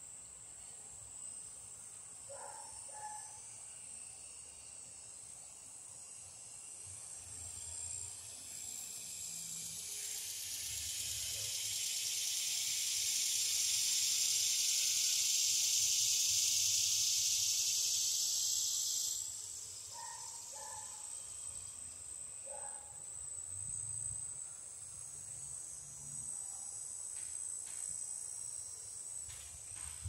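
Cicadas singing: a steady high drone, and one loud buzzing call that swells up over several seconds, holds, then cuts off suddenly about two-thirds of the way through.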